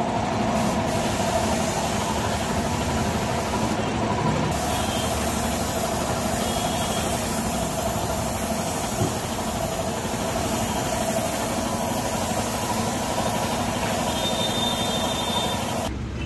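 Compressed-air paint spray gun hissing steadily as it sprays a coat onto a car's body panel before the final paint, with a steady machine hum underneath. The hiss cuts off just before the end.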